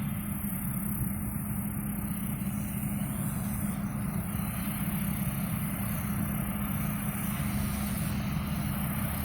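Combine harvester running steadily while cutting rice, a constant machine drone with a steady low hum.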